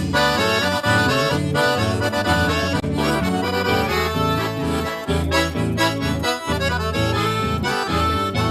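Accordion-led gaúcho vaneirão band music playing an instrumental passage between sung verses, with a steady bass beat.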